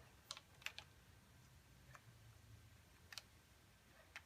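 Near silence broken by a handful of faint, scattered clicks of the plastic halves of a bike-basket handlebar mount being handled and lined up on the handlebar.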